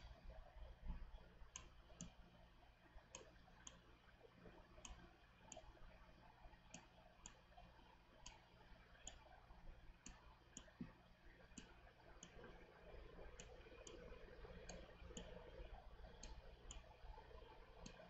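Faint computer mouse clicks, irregular and roughly one a second, over near-silent room tone.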